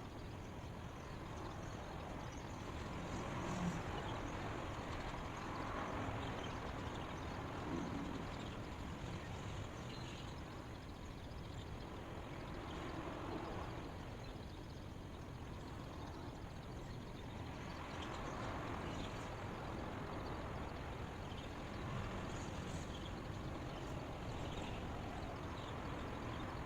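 Steady outdoor background noise without voices or music, swelling and easing slowly every several seconds.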